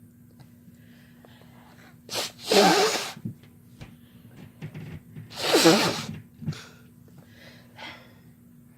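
A person sneezing twice, about three seconds apart. Each sneeze is a sharp burst of breath with a voiced 'achoo' pitch running through it.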